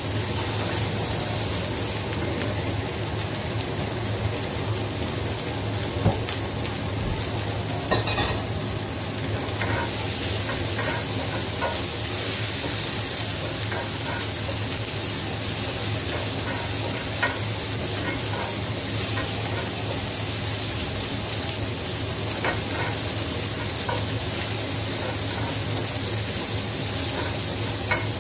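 Vegetables and chilies sizzling as they stir-fry in a frying pan, stirred with a wooden spatula that knocks against the pan now and then.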